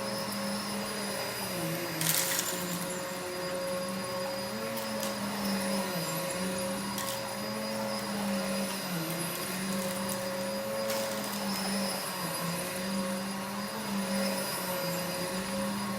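Vacuum cleaner running, its motor pitch dipping and recovering every second or two. A brief loud rattle about two seconds in.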